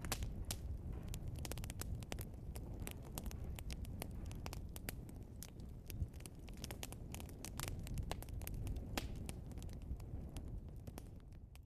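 Burning logs crackling and popping, with many sharp irregular pops over a low steady rumble of the fire; the sound fades away near the end.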